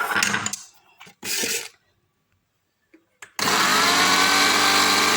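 A few clattering knocks, then after a short pause an electric blender motor switches on about three and a half seconds in. It runs loud and steady, briefly rising in pitch as it spins up, as it grinds chunks of mandarin, onion, lemon and turnip.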